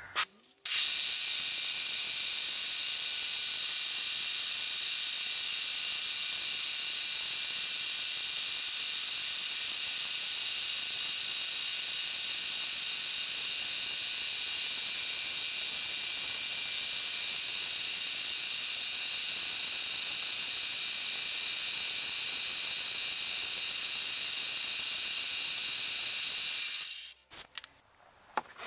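Milling machine spindle running at a steady speed with an end mill fitted, giving a high, even whine made of several tones. It starts abruptly just under a second in and stops abruptly shortly before the end.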